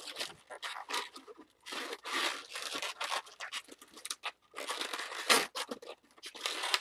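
Latex twisting balloon being worked by hand as ear twists are made in it: irregular bursts of latex rubbing against latex and fingers, the loudest a little after five seconds in.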